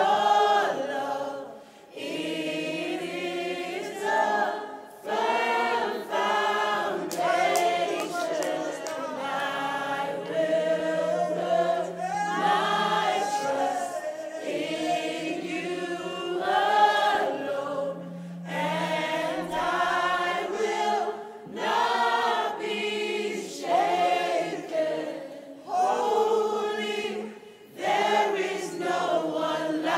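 A group of voices singing a worship song together in phrases of a second or two, with a low note held under them twice; little instrumental backing is heard.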